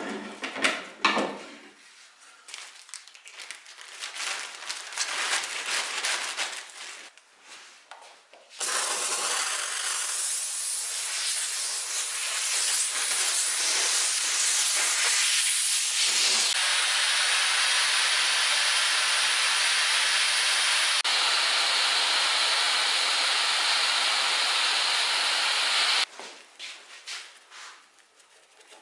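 A hand scraper scraping old finish off the wooden side of a cabinet in repeated short strokes. It is followed by a loud steady hiss that lasts most of the rest and changes tone about halfway through.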